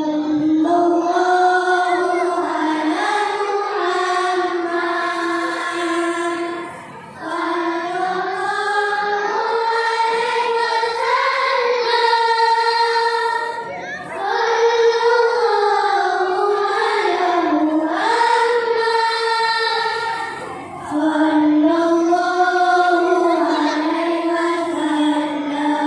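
A children's choir singing a nasyid in long sung phrases, with three short breaks between phrases.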